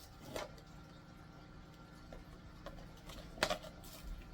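Small cardboard blind-box packaging being handled and opened by hand: a few faint clicks and rustles, the sharpest about half a second in and about three and a half seconds in.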